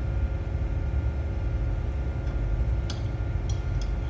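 Steady low machine hum in a workshop, with a few light, sharp metallic clicks of tools on metal in the last second or so, during work on stud bolts.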